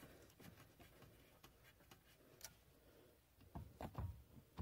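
Faint clicks and light taps from a hand turning the brake light switch in its threaded mount on the brake pedal bracket, with a short run of louder knocks about three and a half seconds in.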